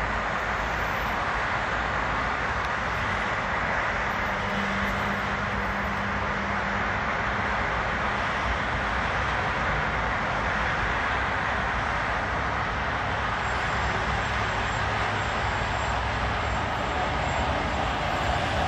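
Steady rushing background noise of the city, an even hiss without words or music that keeps the same level throughout, with a faint low hum for a few seconds about four seconds in.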